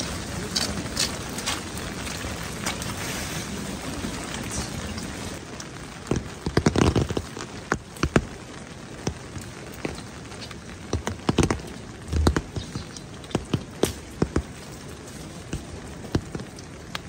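Steady rain, with irregular sharp taps and knocks from about six seconds in.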